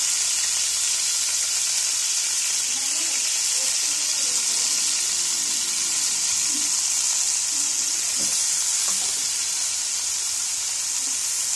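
Chicken breast pieces and garlic sizzling steadily in a frying pan over low heat.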